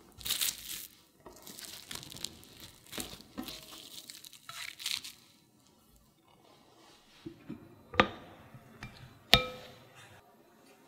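Plastic cling film crinkling in bursts as hands press and smooth it around a slab of modeling chocolate. Later a white dish is set down on the wooden table with two sharp knocks, the second ringing briefly.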